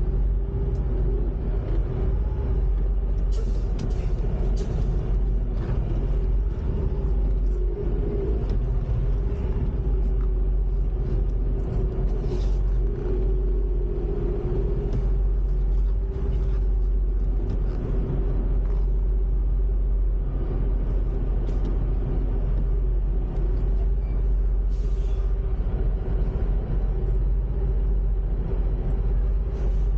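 Semi truck's diesel engine running steadily under way, heard inside the cab: a deep, even rumble with a constant hum over it.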